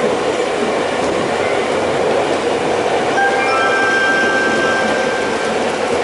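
Nagano Electric Railway local train running, heard from inside the passenger car as a steady rumble. About halfway through, a thin, high, steady squeal joins and holds to the end.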